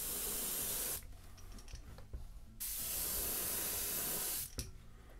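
Gravity-feed airbrush spraying black and moss green paint onto a crankbait: two bursts of steady air-and-paint hiss, about a second long at the start and about two seconds long in the middle, with a few faint handling clicks between them.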